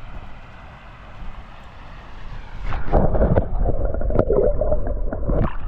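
Steady rush of river water, then from about three seconds in a louder, choppy splashing and sloshing of water close by.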